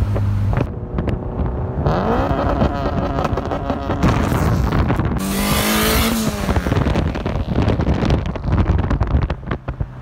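Turbocharged Honda Civic hatchback accelerating hard, its engine pitch climbing and dropping back several times, with a rushing hiss about five seconds in.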